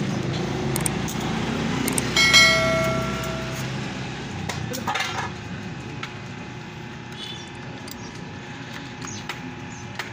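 A metal clink that rings on for about a second, a little over two seconds in, among small handling clicks and knocks of tools and parts on a workbench. A low steady rumble like a passing engine fades out in the first few seconds.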